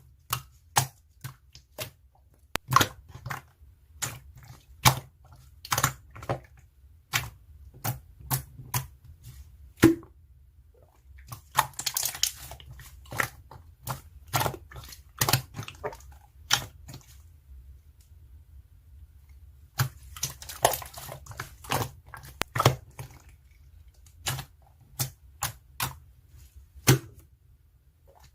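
Computer keyboard keys and clicks tapped at an irregular pace, with quicker flurries of keystrokes about twelve seconds in and again around twenty seconds, over a faint low hum.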